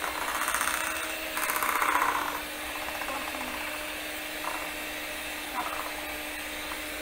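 Electric hand mixer running with a steady motor hum, its beaters churning thick chocolate cake batter in a mixing bowl, louder for the first couple of seconds.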